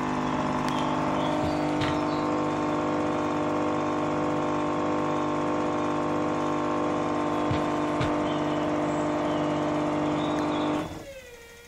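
Indesit W161 washing machine on its spin cycle: the motor and drum spin at a steady speed with a whine made of several tones and a few light knocks. Near the end the motor cuts off abruptly and the drum coasts down, its pitch falling.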